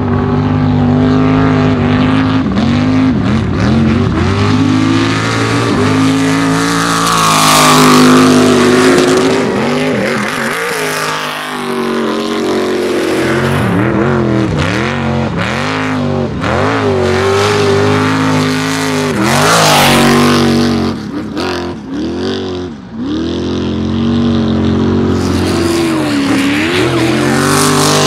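Off-road trophy truck engines revving hard, the pitch climbing and falling again and again as the throttle is worked over rough desert terrain, with a hiss of tyres spinning in dirt and sand. The sound drops briefly about three-quarters of the way through, then the engine comes back up.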